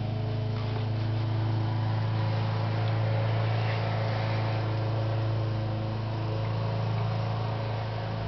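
A steady low hum with faint evenly spaced overtones, unchanging throughout.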